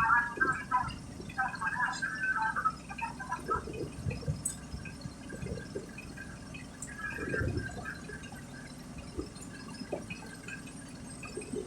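Water sloshing and splashing, with irregular low knocks through a steady background noise.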